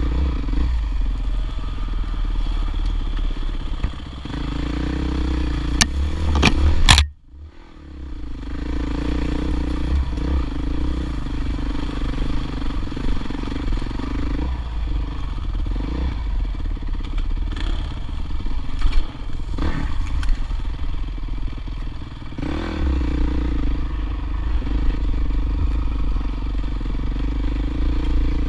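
Dirt bike engine running at low speed on a rough trail, the throttle swelling and easing, with clatter from the bike. Sharp knocks come near seven seconds in, then the sound drops out for a moment and builds back, and twice more about two-thirds of the way through.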